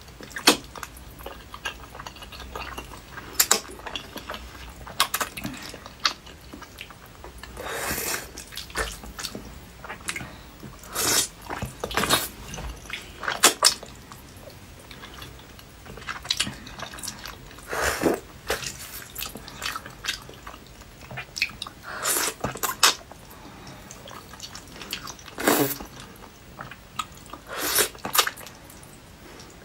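Close-miked eating sounds: wet slurps and sucking as a sheet of melted cheese and spicy noodles is drawn into the mouth. Sharp slurps and mouth smacks come every second or few, with quieter chewing between.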